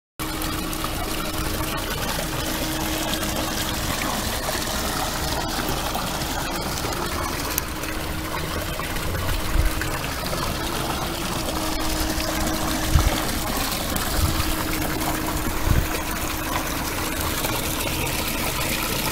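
Water from a cast-iron fountain spout pouring steadily into a stone trough and splashing, with a steady low hum underneath. A few low thumps come through around the middle.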